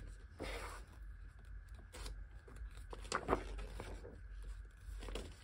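Pages of a glossy board-game rulebook being turned by hand: a few brief papery rustles, the loudest about three seconds in, over a faint low hum.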